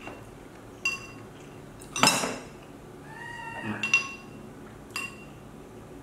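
A spoon clinks against a ceramic rice bowl several times, with a louder clatter about two seconds in. Around the middle a baby monkey gives a short, thin, slightly falling call.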